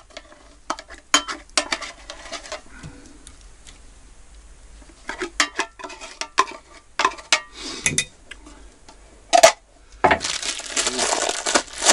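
Metal kitchenware clinking and clicking as a tin can of chicken and a pot are handled, with one sharp louder knock near the end. In the last two seconds a dense crinkling of packaging sets in.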